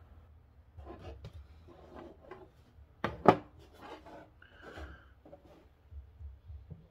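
Small metal tools and parts being handled and scraped on a workbench, then a sharp hammer tap about halfway through and another hard tap at the very end, as a small part is knocked into a 3D-printed plastic key fob.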